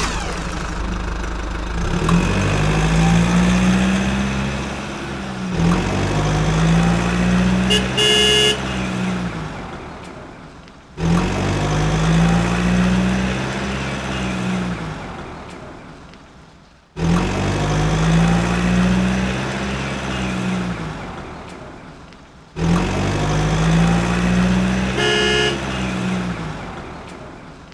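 Motor vehicle engine sound effect revving up and dying away, repeated about every five to six seconds, with a short horn toot twice.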